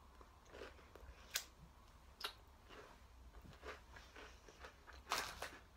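Faint chewing and small mouth clicks as someone eats a chocolate-covered biscuit, with a louder short rustle about five seconds in.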